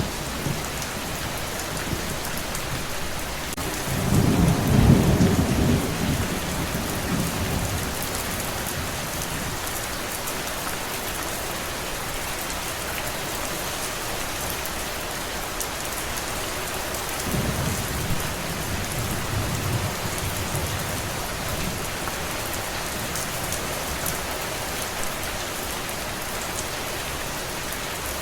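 Steady heavy rain, with two low rolls of distant thunder. The louder roll comes about four seconds in and the softer one about seventeen seconds in.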